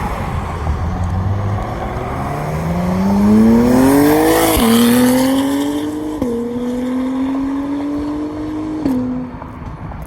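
Supercar engine accelerating hard, revs climbing and then dropping sharply at three upshifts, loudest just before the first shift.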